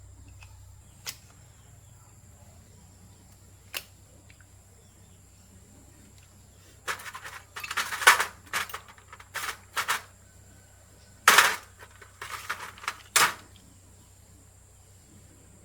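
Workshop handling noises during fan repair: a single sharp click about a second in and another near four seconds, then two spells of quick clattering and scraping, like metal parts and hand tools being knocked and worked, about seven and eleven seconds in.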